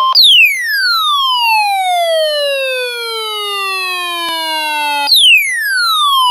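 Midland NOAA weather radio sounding its alert siren for a tornado warning: an electronic wail that falls steeply from high to low over about five seconds, then jumps back up and falls again.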